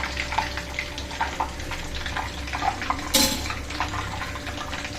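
Hot peanut oil sizzling and crackling in a frying pan, with many small pops. About three seconds in there is a brief, louder hiss.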